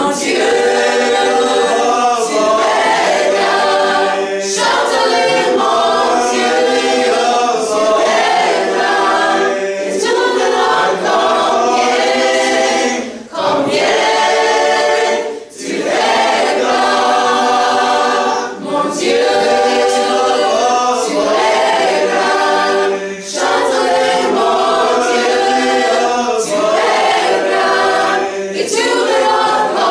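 Mixed-voice school choir singing a cappella in harmony, phrase after phrase with short breaks between them.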